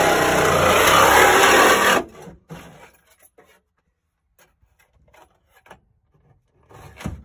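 Cordless reciprocating saw cutting through a car's sheet-steel floor pan with a loud, steady rasp that stops abruptly about two seconds in. After it come a few light clicks and a short knock near the end as the saw is handled.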